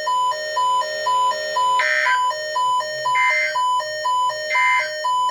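Electronic alert beeping: a high tone pulsing on and off about twice a second, with three short, higher, buzzier chirps coming about two, three and a half, and four and a half seconds in.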